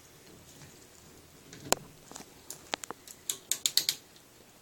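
Sharp metal clicks and clinks of a wrench being fitted onto an AR-15 barrel nut: a single click about a second and a half in, another a second later, then a quick run of clicks near the end.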